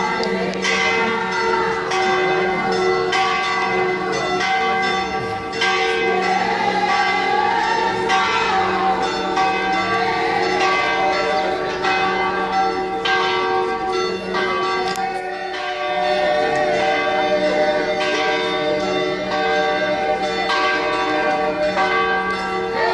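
Church bells ringing continuously, many strikes overlapping so their tones hang on steadily.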